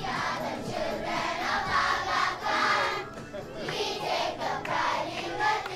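A large group of schoolchildren singing together, many young voices at once.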